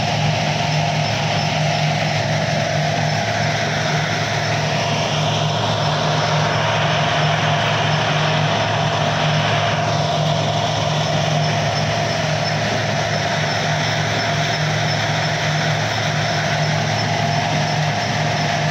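Stone crusher plant running: a steady mechanical drone from the crusher and its conveyor belts, with a constant low hum and a steady higher whine over it.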